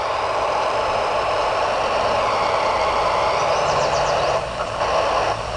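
Steady FM radio hiss from a Yaesu VX-5R handheld receiving the AO-51 satellite downlink with no voice on it, with a faint wavering whistle about two-thirds of the way through.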